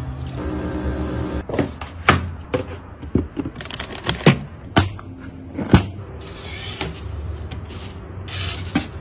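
Household sounds in quick succession: water churning in a plastic bucket for about a second and a half, then a run of sharp knocks and clunks as plastic appliances are pushed into a wooden cupboard, and a couple of short hisses near the end.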